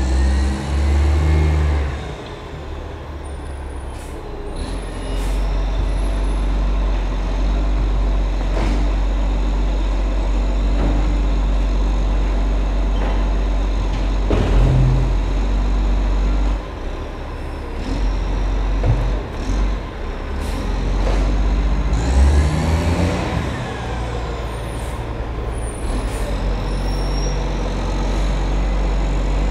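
Diesel rubbish truck's engine running with a steady low rumble as it works along the street, with loud hissing bursts of its air brakes near the start and again about two-thirds of the way through.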